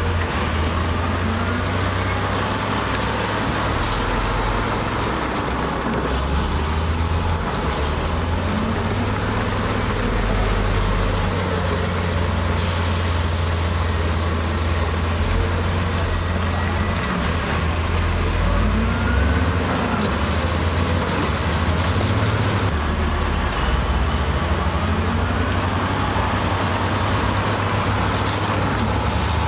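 Heavy diesel engines of a dump truck and a bulldozer running, the engine note rising and falling in pitch several times over a steady low drone. A short hiss of air brakes comes about 13 seconds in.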